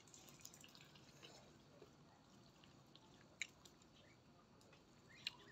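Faint wet mouth clicks and chewing of a person eating rambutan, with two sharper clicks, one about three and a half seconds in and one near the end.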